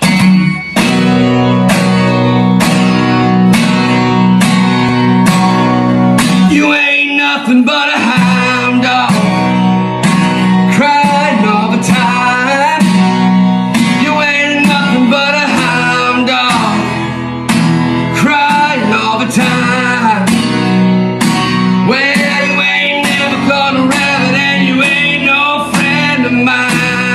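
Acoustic guitar strummed in a steady rhythm. A man's singing voice joins about seven seconds in and carries on over the guitar.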